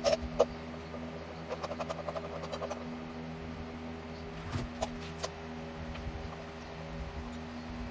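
A steady low hum, with light clicks and taps over it: a quick run of small ticks about two seconds in and a few knocks around five seconds in.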